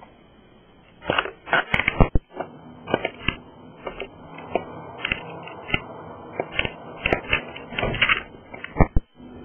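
Crinkling and crackling: a run of short, irregular crunches and rustles, starting about a second in and going on for several seconds.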